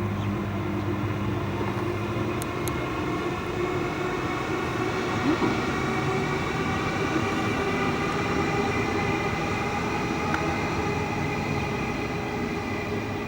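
Queensland Rail electric multiple-unit train running past, a steady whine of several tones over the rumble of the wheels, with a low hum that fades after about four seconds.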